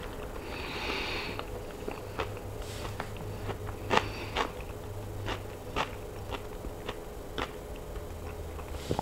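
A person chewing food with the mouth closed, close to the microphone: a string of sharp, wet mouth clicks and smacks at about two a second, the loudest about halfway through.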